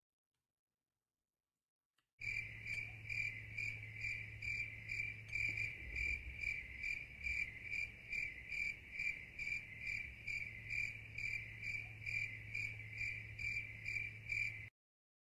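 Cricket chirping sound effect laid in over digital silence, a steady high chirp pulsing about twice a second with a faint low hum under it. It starts suddenly about two seconds in and cuts off abruptly near the end: the comic 'crickets' gag for a stunned, silent moment.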